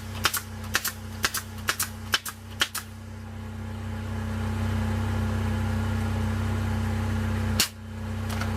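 Pneumatic air nailer firing, about eight quick sharp shots in the first three seconds and one more near the end, over the steady hum of a running engine.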